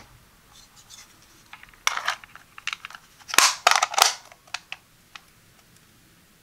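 Plastic battery cover of a Kitchen Mama electric can opener being fitted back onto its body: scattered light clicks and scrapes of plastic on plastic, then a cluster of louder clicks about three and a half to four seconds in as the cover snaps into place.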